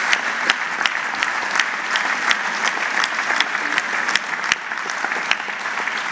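Audience applauding: a dense, steady clapping of many hands that eases off slightly near the end.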